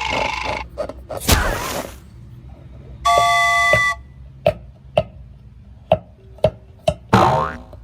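A string of edited-in cartoon-style sound effects: noisy swishes, a held electronic chime, a run of sharp pops, and a quick rising sweep near the end.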